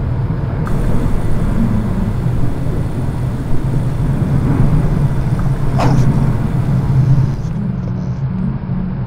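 A loud, steady low rumble, with a brief hiss about six seconds in; it eases slightly near the end.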